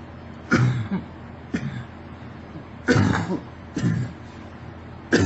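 A girl coughing, about four separate coughs roughly a second apart.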